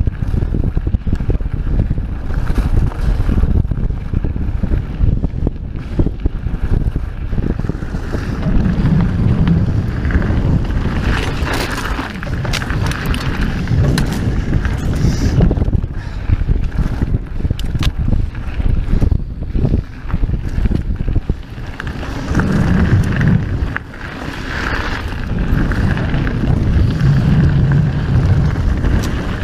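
Santa Cruz Megatower mountain bike descending rough dirt singletrack at speed: a steady low rumble of the tyres and rattle of the bike over the dirt, with wind buffeting the microphone. Scattered sharp clicks and knocks come through as the bike hits rocks and bumps.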